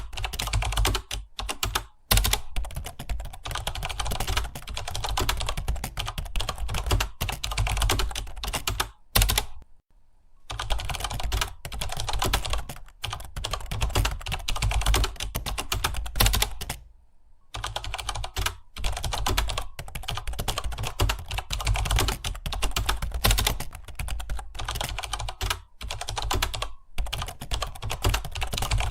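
Fast typing on a computer keyboard: a dense run of keystroke clicks, broken by short pauses about ten and seventeen seconds in.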